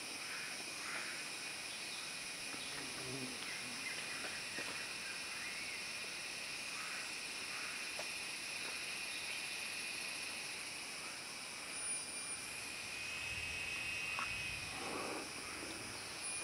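Tropical rainforest ambience dominated by a steady, high-pitched insect drone at several pitches, with faint scattered short calls underneath.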